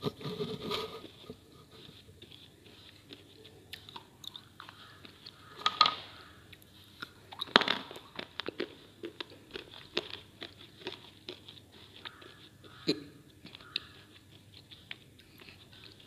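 Slate pieces being bitten and chewed: crisp, brittle crunching in irregular crackles, with the loudest bites about six and eight seconds in and another near thirteen seconds.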